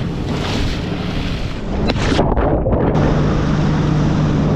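Jet ski engine running under way, with water wash and wind on the microphone; about two seconds in it gets louder and settles into a steady hum.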